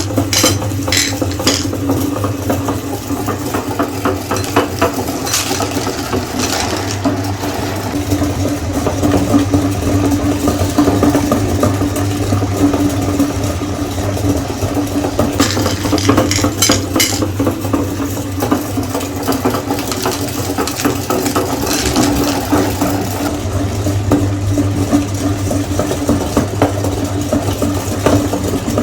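Electric meat grinder running with a steady motor hum while grinding hard-shelled M&M candies, with clattering and crunching of the candy shells that comes in short flurries several times.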